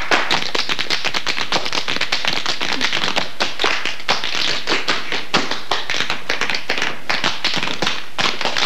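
A group of tap dancers beating out fast, dense taps with their tap shoes on a hard floor: a rapid, unbroken stream of sharp metal clicks.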